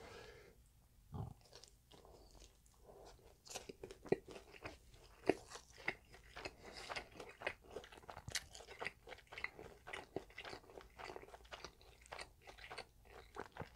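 Close-miked crunching and chewing of a crisp breaded, deep-fried pork cutlet (tonkatsu). A dense run of sharp crunches sets in a few seconds in and keeps going as he chews.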